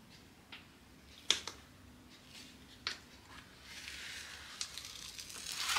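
A few light taps and clicks, then a diamond painting canvas with its plastic cover sheet rustling and crinkling as it is handled and bent flat, growing louder toward the end.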